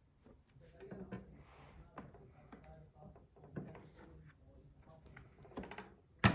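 Light taps and clicks of an iPad Pro and its Smart Keyboard being handled while the keyboard connection is tested, ending in one sharp click.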